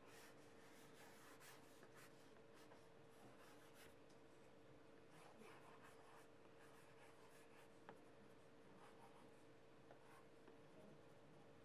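Faint scratching of a stylus writing on an LCD writing tablet, in short strokes, with a small tap about eight seconds in, over a faint steady hum.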